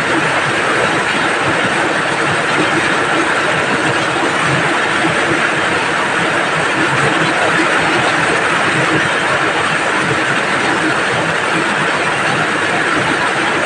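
Steady rain falling, an even, unbroken hiss with no single drops or breaks standing out.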